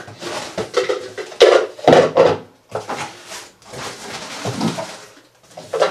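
Cardboard shipping box being handled and rummaged through: irregular scraping, rustling and knocking of cardboard and packing, with a couple of louder bumps about one and a half to two seconds in.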